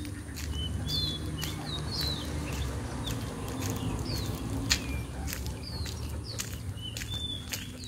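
Birds chirping: short, falling chirps repeating every half second or so, over a steady low rumble and scattered sharp ticks.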